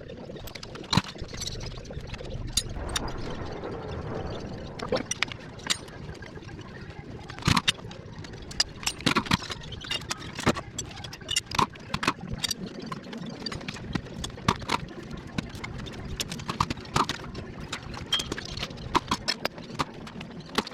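Irregular metallic clinks, taps and knocks of hand tools and engine parts being handled while an engine is taken apart, some with a short ring.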